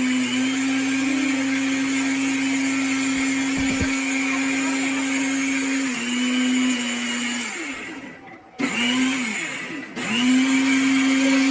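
Butterfly Magnum mixer grinder's motor running at full speed with a steady whine. About seven and a half seconds in it is switched off and winds down, then it is pulsed briefly and started again, rising back to full speed near the end.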